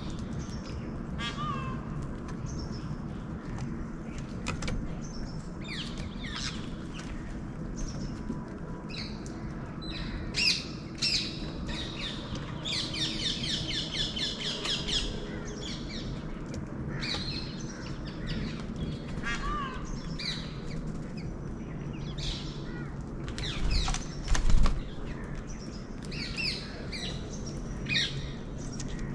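Wild birds chirping and calling, with a fast trill of rapidly repeated high notes about twelve seconds in. A couple of low thumps come near the end, the louder one the loudest sound here.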